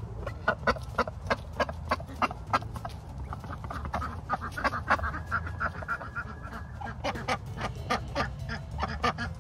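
White domestic duck quacking repeatedly in quick runs of short quacks, about three a second, with a brief pause about six seconds in.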